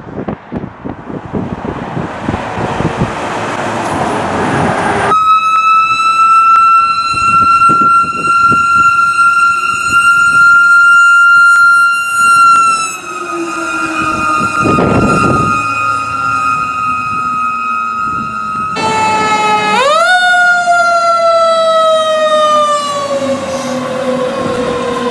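Fire trucks responding with sirens: road and engine noise at first, then a siren holding a nearly steady wail for several seconds that dips slightly in pitch, then a siren that sweeps up quickly and winds down slowly.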